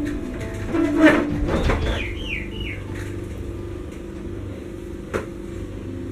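Room sound with a steady low hum, rustling and a few sharp knocks as someone moves about handling things, and three quick falling chirps about two seconds in.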